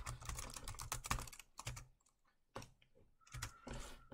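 Typing on a computer keyboard: a quick run of keystrokes for about two seconds, then a pause and a few more scattered clicks.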